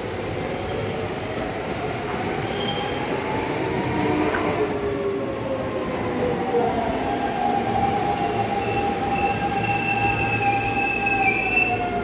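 Electric commuter trains at a station. A rising motor whine from a train pulling out gives way to a Hanshin 5500-series train running in over the rails, its whine falling as it slows. A steady high brake squeal carries through the last few seconds and dips in pitch as the train stops.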